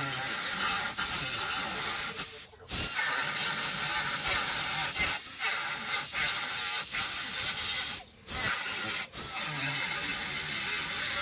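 Pneumatic cut-off tool with a small abrasive wheel grinding through the sheet-steel inner panel of a 1999 Ford F-150 driver door: a steady high hiss of air and wheel on metal. It pauses briefly about two and a half seconds in and twice around eight to nine seconds in, and stops near the end.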